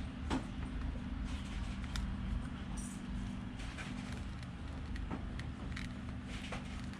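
Steady low mechanical hum with scattered light clicks and scrapes of a small tool prying at a phone's glued back glass.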